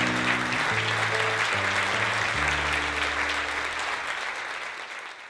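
Audience applauding over background music with slow, held bass notes that change every second or so; both fade out near the end.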